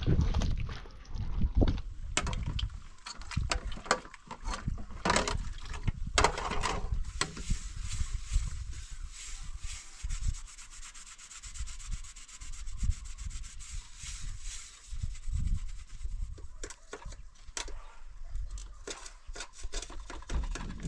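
Wet cement mortar squelching and slapping as gloved hands work it in a metal tray, then dishes being scrubbed at a sink: a steady scouring rub from about seven seconds in, broken by clinks of plates and pots.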